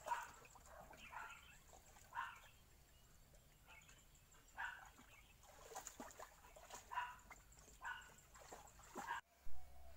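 A dog whimpering and whining in short, high cries about once a second while it wades through water. The sound breaks off near the end, followed by a short thump.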